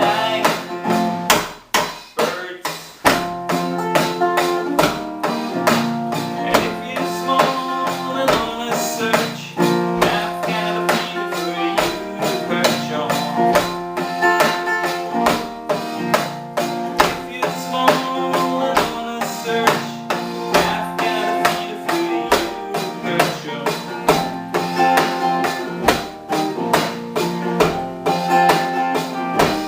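Live music led by a guitar, played in a steady rhythm of strokes over sustained notes, with a short break about two seconds in.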